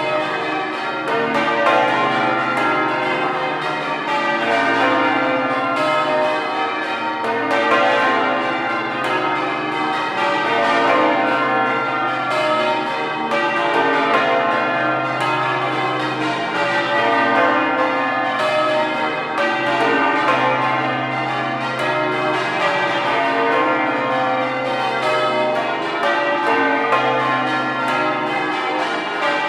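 Change ringing on Exeter Cathedral's ring of twelve full-circle church bells. The bells strike one after another in a rapid, unbroken sequence whose order keeps shifting.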